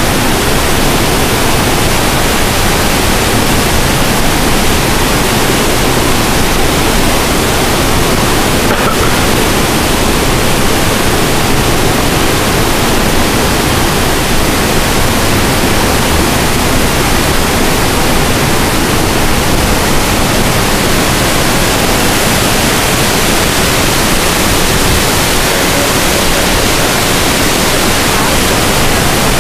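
A cruise ship's wake churning astern: a steady, loud rush of foaming, tumbling water.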